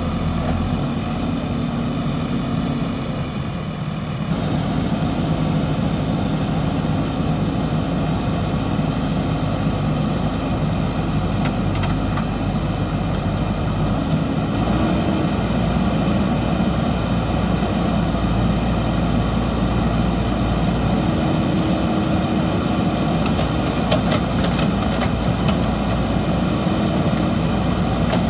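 JCB backhoe loader's diesel engine running steadily, growing a little louder about four seconds in, with a few brief sharp clanks.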